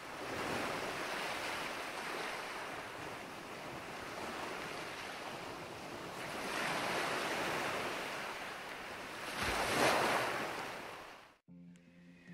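Ocean surf: waves breaking and washing up a sandy beach as a steady rush that swells twice, the loudest wave crash coming near the end, then cutting off suddenly. Faint music starts in the last second.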